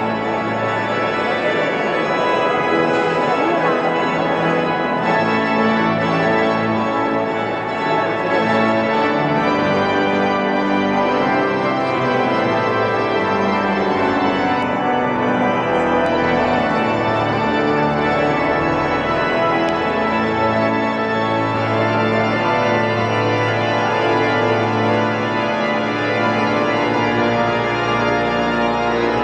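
Pipe organ playing long held chords that move slowly from one to the next.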